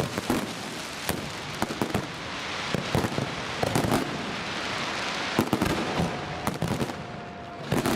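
Fireworks display: a continuous crackle of bursting stars, broken by frequent sharp bangs of exploding shells.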